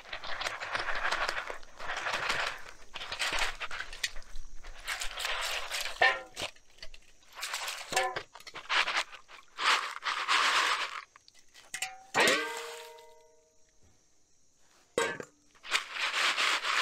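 Hands swishing and rubbing soaked beans in water in a plastic colander set in a stainless steel bowl: a run of sloshing swishes about a second each. A few times the steel bowl is knocked and rings with a clear metallic tone, most clearly about twelve seconds in, and near the end water runs off as the colander is lifted out of the bowl.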